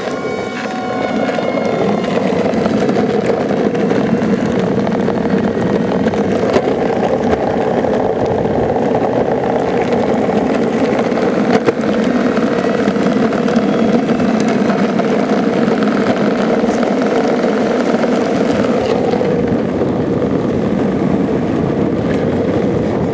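Steady, unbroken road noise of longboard wheels rolling fast over asphalt.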